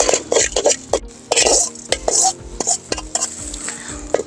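A spoon stirring and scraping dry spices being roasted in a metal kadai, a quick run of scrapes that thins to a few scattered ticks after about two seconds.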